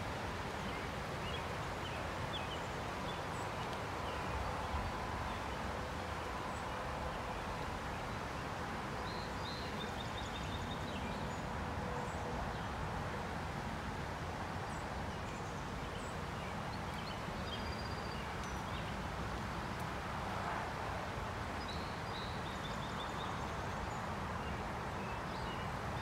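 Woodland ambience: a steady rushing background noise with a few short, high bird chirps now and then.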